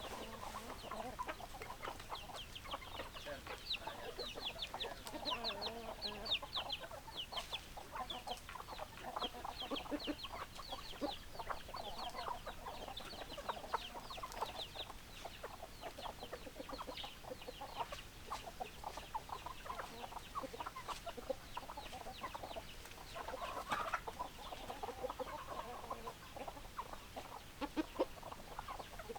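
A flock of chickens clucking continuously, with rapid high-pitched chirps over the first half.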